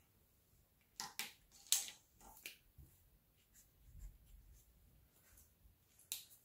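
Colored pencils clicking against a hard tabletop as they are picked up and put down, several sharp taps in the first half and one more near the end. A soft scratch of pencil coloring on paper comes around the middle.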